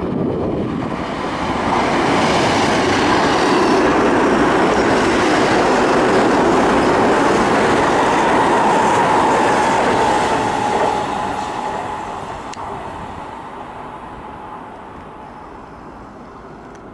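Seibu 9000 series electric train running past at close range: the rumble of wheels on the rails swells a couple of seconds in, stays loud, then fades as the train moves away. A steady whine joins it for a couple of seconds past the middle.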